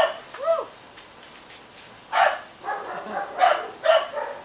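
Dogs barking: a bark and a short rising-and-falling yelp at the start, then a run of about five short barks from about two seconds in.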